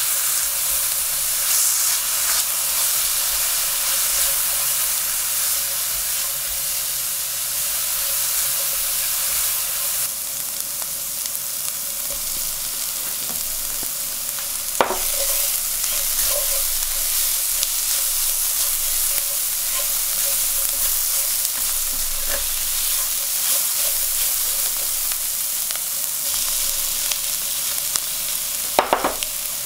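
Chopped onion and curry powder sizzling in olive oil in a stainless steel frying pan, stirred with a silicone spatula: a steady frying hiss. There is a sharp tap about halfway through and a few clicks near the end.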